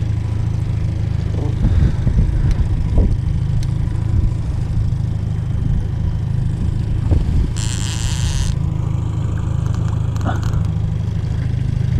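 Boat engine running steadily at trolling speed, a low even hum. About eight seconds in there is a noisy burst lasting about a second.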